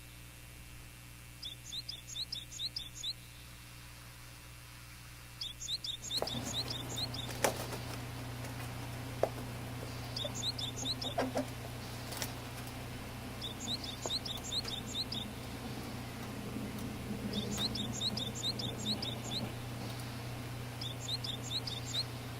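Japanese tit (shijukara) giving short bursts of rapid, high chirps, each burst about a second long and repeated every few seconds. About six seconds in, a low steady hum and background noise come up, with a few sharp clicks.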